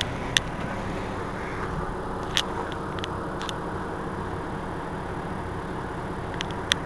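Mercedes-Benz Citaro C2 city bus standing and idling, its diesel engine running steadily, with a few short sharp clicks scattered through.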